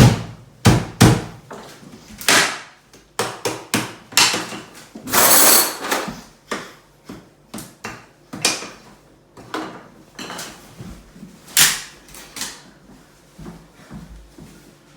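Sliced ham being beaten with a stick, a rapid, irregular series of loud thwacks with a longer rough burst about five seconds in, the blows growing softer and sparser toward the end.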